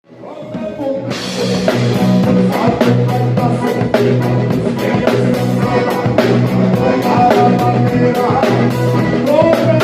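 Live band music from a gaúcho group: a drum kit keeping a steady beat, which comes in about a second in, under accordion (gaita) chords and melody with bass and guitar.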